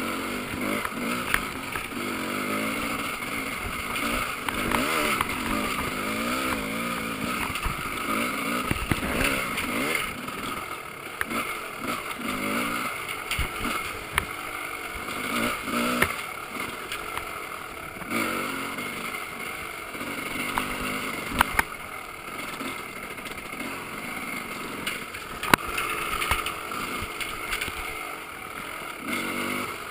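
Off-road dirt bike engine running under way on a tight trail, its pitch rising and falling with the throttle, heard through the camera's waterproof case. Several sharp knocks stand out over the engine at scattered moments.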